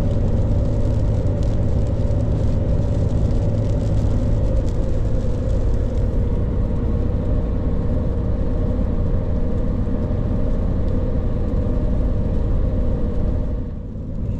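Steady road and engine rumble inside a pickup truck's cabin at highway speed on a wet road, with a few faint clicks early on; the loudness dips briefly near the end.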